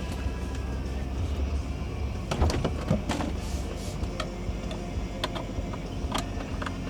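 Scattered clicks and knocks of car parts being handled over a steady low hum, the loudest knocks a little over two seconds in.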